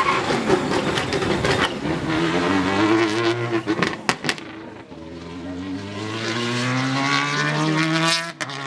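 Citroën DS3 rally car passing close, then accelerating away hard. The engine note climbs, breaks with two sharp cracks a little before halfway, then climbs again for several seconds until a gear change near the end.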